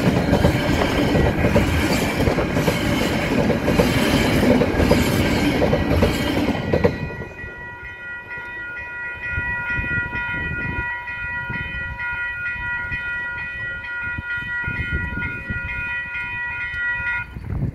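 A freight train's flat wagons roll past on the rails; the last wagon clears about seven seconds in. The level crossing's alarm bells then ring on their own in a steady, high, multi-toned ring, and cut off abruptly near the end.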